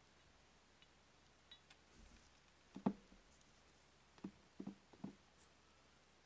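Light knocks and clicks of small painted cast-iron bank parts being handled and fitted together by gloved hands: one sharper knock about three seconds in, then a quick run of about four taps a second or so later.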